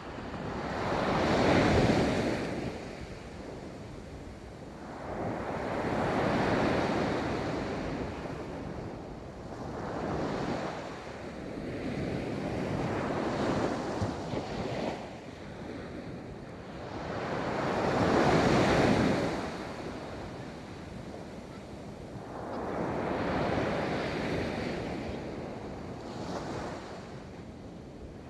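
Ocean waves breaking on a beach in about six slow surges, each swelling and washing back over a few seconds. The strongest break comes near the start, and another about two-thirds of the way through.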